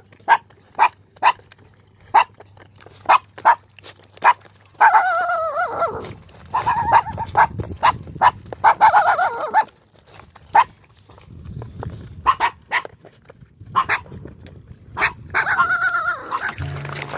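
Puppies eating rice from a shared tray: quick sharp clicks of chewing and lapping, broken by several short high-pitched dog yelps, one falling in pitch about five seconds in. Music comes in at the very end.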